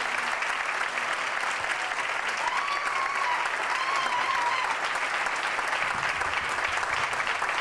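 Audience applauding steadily at the close of an award acceptance speech.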